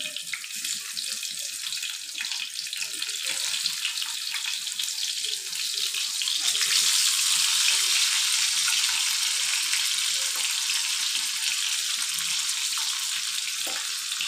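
Potato slices sizzling in hot vegetable oil in a frying pan as they are laid in one by one, a steady hiss with small crackles. The sizzle grows louder about six seconds in as more slices go in.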